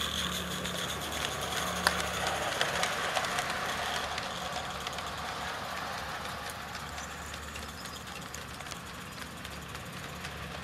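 Small live-steam G-scale locomotive running with fast, even chuffing and steam hiss, its wagons clicking along the track. It grows gradually fainter as the train moves away.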